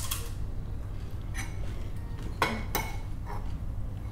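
Spoons and cutlery clinking against ceramic plates and bowls during a meal, a few separate clinks with a short ring, over a low steady hum.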